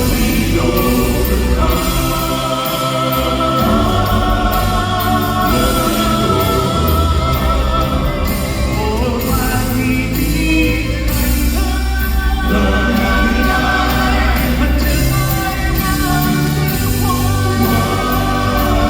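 Gospel vocal group singing a song live over instrumental accompaniment with a steady beat.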